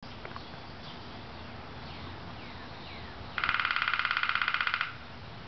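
Downy woodpecker drumming: one rapid, even roll of beats lasting about a second and a half, starting past the middle, with a ringing tone to each beat.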